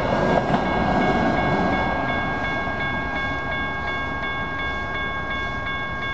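Grade-crossing warning bell ringing steadily, about three strikes a second, while the rolling rumble of a departing SacRT light rail train dies away over the first couple of seconds.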